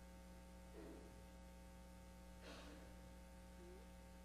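Near silence: steady electrical mains hum, with two faint short sounds about a second in and about two and a half seconds in.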